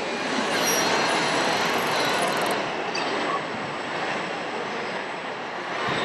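Steady, dense noisy din of a busy indoor hall, with model construction machines working on a dirt layout and spectators around it.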